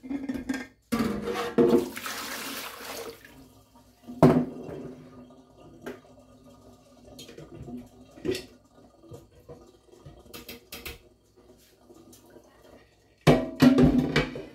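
Kitchen tap water running for about two seconds, followed by scattered knocks and clinks as a glass canning jar and a slow cooker's lid are handled, with a louder clatter near the end.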